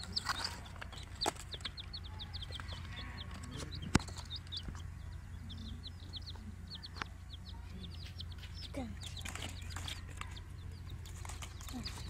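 Young chicks peeping: rapid runs of short, high peeps over a steady low hum, with a few sharp knocks, the loudest about four seconds in.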